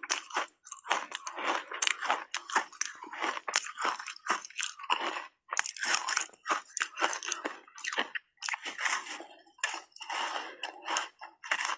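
Ice coated in matcha tea powder being bitten and chewed close to a clip-on microphone: a dense, irregular run of sharp crunches.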